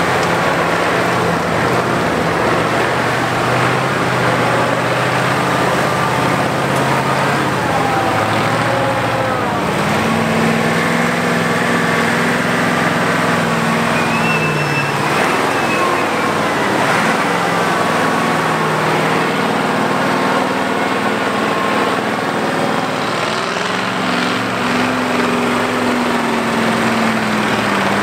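Trial truck's diesel engine working hard under load while climbing out of a mud pit. The engine note rises and falls several times as the throttle is worked, with a higher pitch from about ten seconds in, again near the end.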